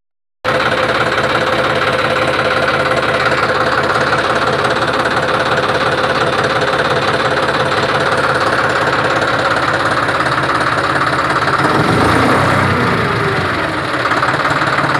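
John Deere 5310 tractor's three-cylinder diesel engine idling steadily at about 900 rpm, with a brief shift in its pitch near the end.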